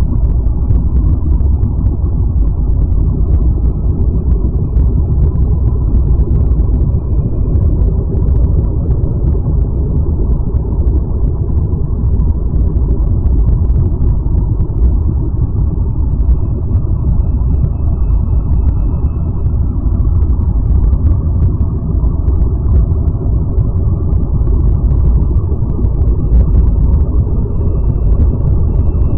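Space-ambience sound presented as an exoplanet's sound: a deep, steady rumble of noise, with faint thin high tones drifting in for a few seconds now and then.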